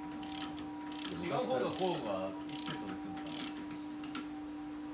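Ratchet wrench clicking in short runs, about one every two-thirds of a second, as a bolt is worked loose on a Harley-Davidson Sportster during teardown. A steady hum runs underneath.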